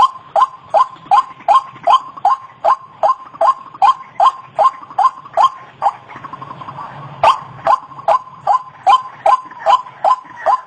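White-breasted waterhen (ruak-ruak) calling: a fast, even series of short loud notes, about two and a half a second, each dipping slightly in pitch. The series breaks off for about a second and a half past the middle, then resumes.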